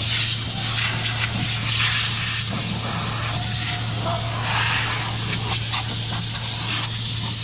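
Compressed-air blow gun hissing as it blows air across a masked truck panel to dry it off before painting. A steady low hum runs beneath.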